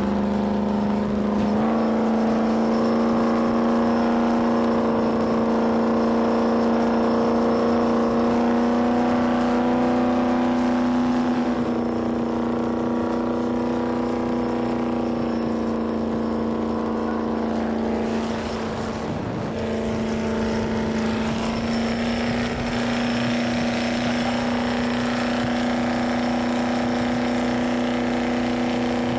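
Jet boat engine running at speed. Its pitch climbs over the first two seconds and then holds steady. About 19 seconds in it briefly drops in pitch and loudness, then comes back up.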